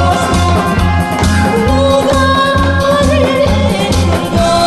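A Korean trot song sung live over a backing track: a held, wavering vocal line above a steady bass beat.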